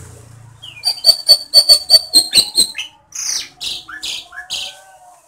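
A caged cucak ijo (leafbird) singing loudly: a fast run of about ten sharp, ringing notes, roughly five a second, from about a second in. Then, near the middle, four longer whistled notes, each sliding down in pitch.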